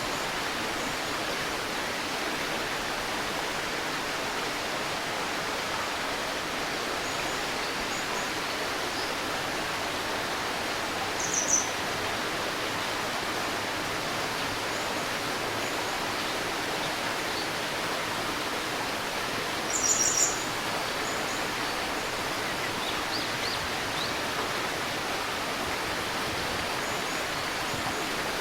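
Shallow river burbling steadily, with a few short high bird chirps over it: one about eleven seconds in, a louder pair about twenty seconds in, and faint ones soon after.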